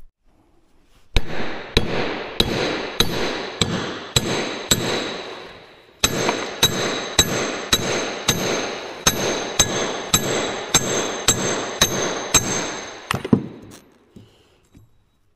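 Hammer blows on a Putzmeister concrete pump's 9-inch piston cup assembly clamped in a vise, knocking the top off. The strikes ring metallically and come in two steady runs of about two a second: the first from about a second in, the second from about six seconds in, ending with a couple of stray knocks near the end.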